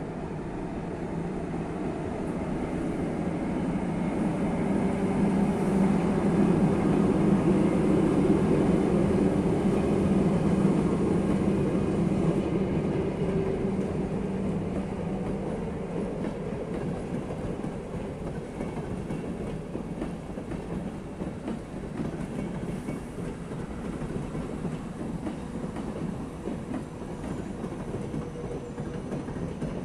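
Passenger coaches of the Connecting Europe Express rolling past on the rails. The sound swells to a peak with a steady low hum about a third of the way through, then eases off as the coaches keep passing.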